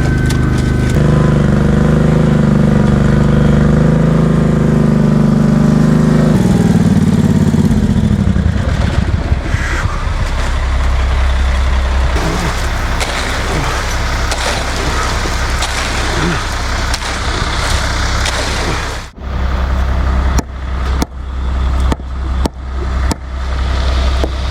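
Concrete truck's diesel engine running fast and steady, then falling in pitch about seven seconds in and settling lower. A string of sharp knocks comes near the end.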